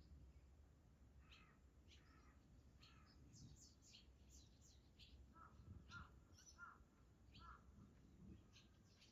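Birds chirping faintly: many short, separate calls, some high and thin, with a run of four or five lower notes about halfway through, over a steady low hum.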